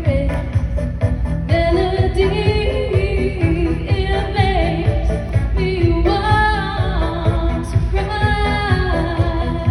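A woman singing a pop song, holding and sliding between notes, over a steady beat.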